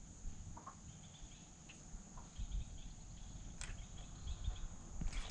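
Steady high-pitched insect trill with faint chirping over quiet lakeside ambience, with a few soft clicks and low bumps.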